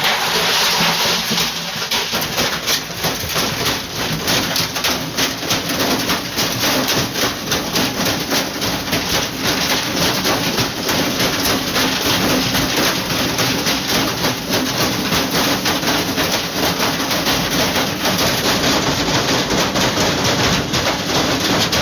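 Washing machine running flat out on battery power, its drum spinning at top speed and the whole machine shaking and banging with a loud, continuous, dense clatter as it tears itself apart.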